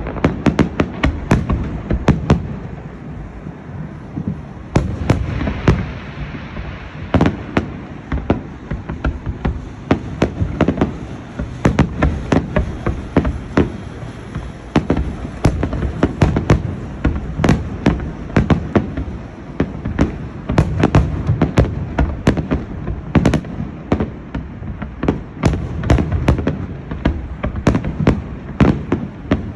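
A fireworks display: a continuous run of aerial shell bursts and bangs, several a second at times, over a low booming rumble.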